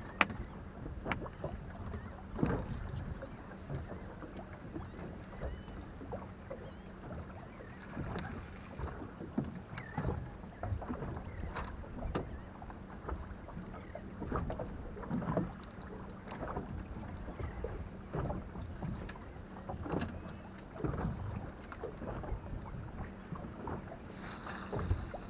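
Small fishing boat at rest on the water: irregular light knocks and splashes against the hull over a steady low hum.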